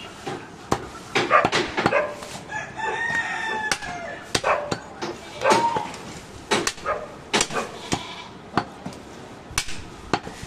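A butcher's knife chops goat ribs on a wooden chopping stump, giving repeated irregular sharp knocks. A rooster crows once, a long call about two and a half seconds in, and there is a shorter chicken call a little later.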